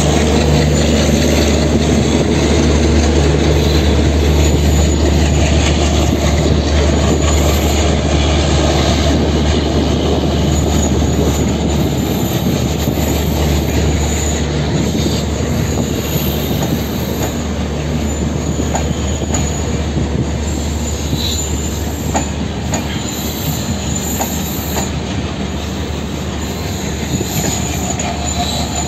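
A departing train's coaches rolling past on jointed track, with wheels clicking over the rail joints and a thin high wheel squeal. The steady hum of the hauling WDG3A diesel locomotive's engine dies away over the first dozen seconds.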